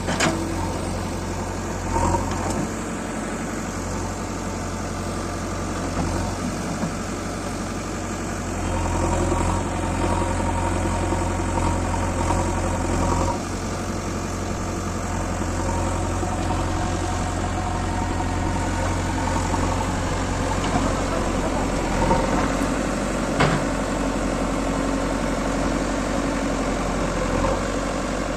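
Diesel engine of a JCB 3DX Eco backhoe loader running steadily while digging, a little louder from about nine seconds in, with a few sharp knocks.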